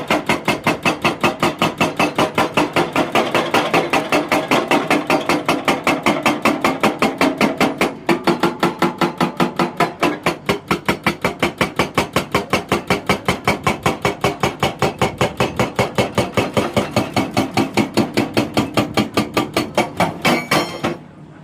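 Hydraulic rock breaker on a Hyundai 220 excavator hammering rock in a fast, steady run of blows, about five a second, stopping shortly before the end.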